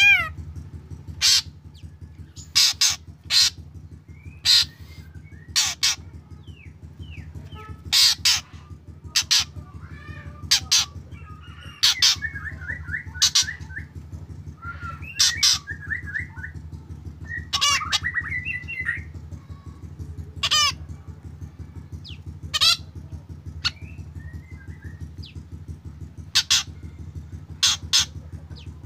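Black drongo calling: a string of short, sharp, loud notes at irregular intervals, with quicker chattering phrases in the middle stretch, over a steady low hum.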